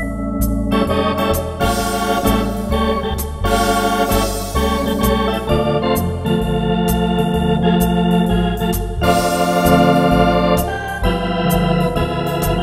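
Wersi Atlantis electronic organ playing a swinging tune with drawbar organ stops: held chords over a pedal bass line that changes note about every half second, with a steady high ticking beat behind.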